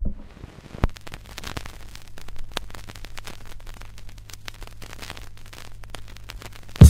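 Vinyl LP surface noise as the stylus runs through the lead-in groove: hiss with scattered crackles and clicks over a steady low hum. Near the end the first loud, low beat of the record's music comes in.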